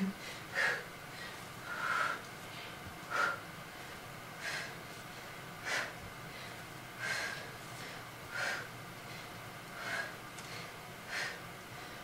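A woman breathing hard and sharply, one short forceful breath about every 1.3 seconds, in time with each rep of side-lying tricep push-ups; the heavy breathing of hard exertion.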